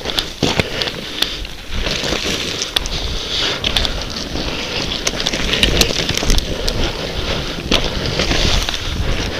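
Scrub brushing and crackling against a dog-mounted camera as the hunting dog moves through maquis, with rumbling wind on the microphone and frequent sharp clicks and scrapes.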